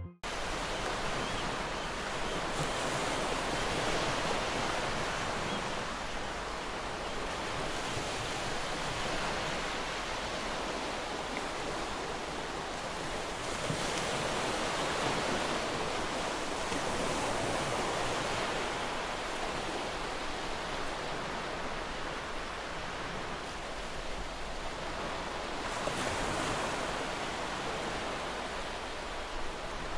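Sea waves washing in, with some wind; the noise swells and eases slowly every several seconds.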